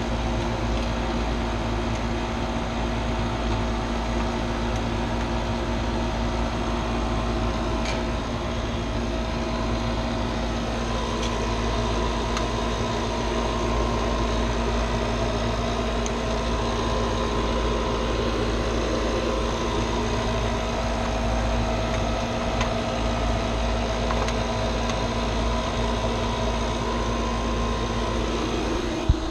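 An HVAC vacuum pump running steadily while it evacuates the new system's refrigerant lines, giving a constant motor hum with a few steady tones.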